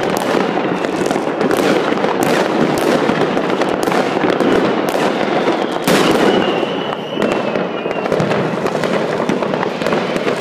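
New Year's fireworks and firecrackers going off in great numbers at once: a dense, unbroken crackle with many sharp bangs standing out, and a thin whistle about six seconds in.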